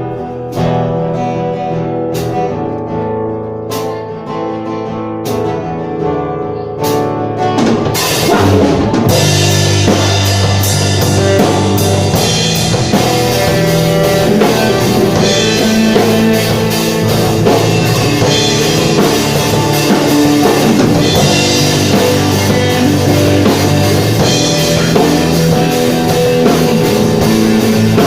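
Live rock band playing: electric guitar with a few sharp drum strikes at first, then about eight seconds in the full band with drum kit comes in and plays on steadily.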